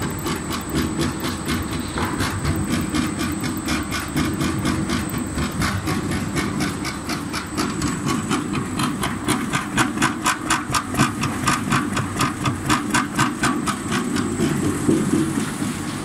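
Screw pellet press running under load, pushing 8 mm pellets out through a multi-hole die. A steady mechanical drone carries a fast, regular clacking, which is loudest in the middle of the stretch.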